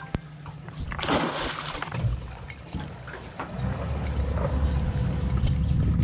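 A crab pot splashing into shallow water about a second in. From about halfway a steady low rumble sets in and keeps going.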